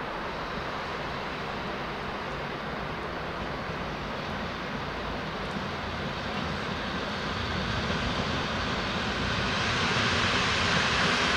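A train approaching, its steady running noise with a low engine hum growing gradually louder.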